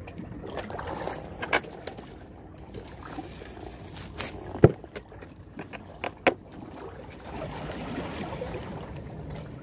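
A few sharp clicks and knocks from handling a plastic box and fishing tackle, the loudest about halfway through, over a steady wash of sea and wind noise.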